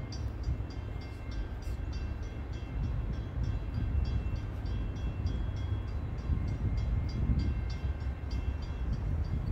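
Railroad grade-crossing warning bell ringing in steady strokes, about four a second, over a low rumble as a train approaches.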